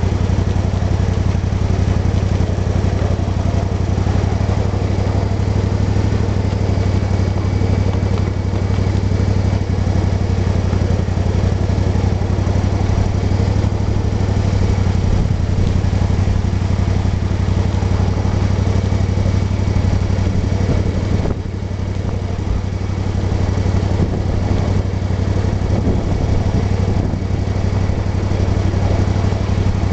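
Small engine of a 1/8-scale SOO Line F7A model locomotive running steadily while hauling a ride-on train, its level dipping briefly about two-thirds of the way through.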